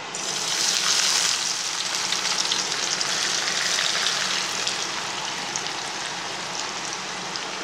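Sliced onions dusted with rice flour dropped into hot oil in a kadai and deep-frying with a loud, steady sizzle. The sizzle swells in the first second as the onions go in, then eases slightly as they fry.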